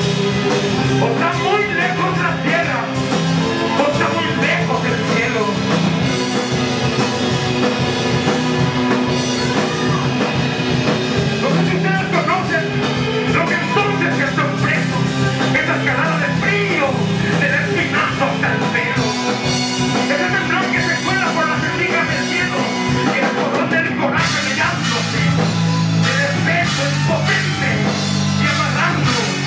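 Live instrumental rock played loud and without a break: electric guitar over a full drum kit.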